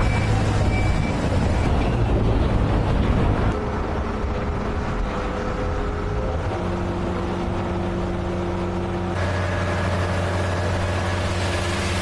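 Engines of heavy construction machinery running steadily as a load of dusty material is tipped into a hopper, the sound changing abruptly about three and a half and nine seconds in.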